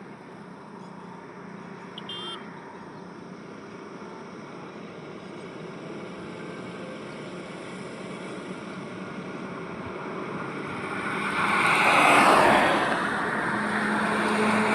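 Highway traffic with a steady road rumble; a vehicle approaches and passes close, loudest about twelve seconds in, and a steady low engine tone follows near the end.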